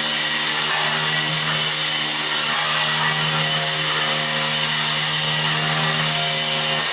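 Electric walk-behind floor scraper running steadily, its front blade scraping stuck rubber carpet-backing residue off a concrete floor: a constant motor hum under a dense scraping noise.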